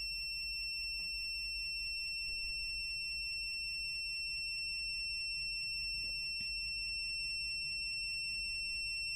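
Multimeter's buzzer sounding one continuous high-pitched beep while its test leads rest across a 1-ohm resistor: the meter's low-resistance (continuity) signal.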